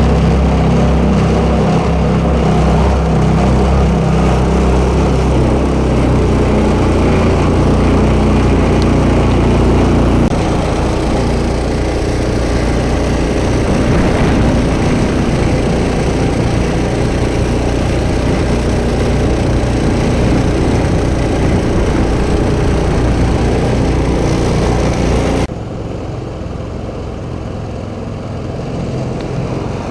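Small engine on a motorized steel boat running steadily. About a third of the way through its sound becomes rougher and a little quieter, and near the end it drops suddenly in level.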